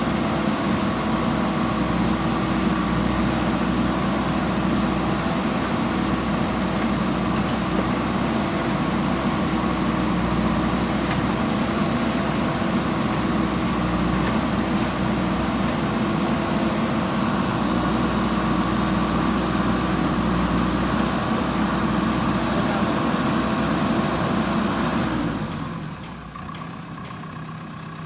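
Backhoe loader's diesel engine running steadily at working revs, then winding down to a lower, quieter idle near the end.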